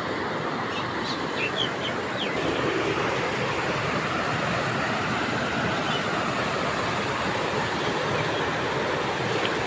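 A swollen, muddy river in flood after heavy rain, its fast brown water rushing over rocks in a steady, even rush.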